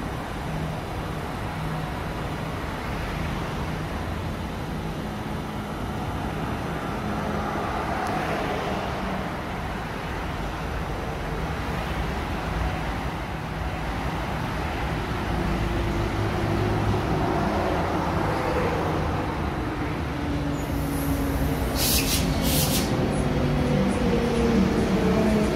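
Transperth A-series electric multiple unit pulling into the platform and braking to a stop, its motors whining down in falling pitch over a steady rumble. Two short hisses come about three seconds before the end.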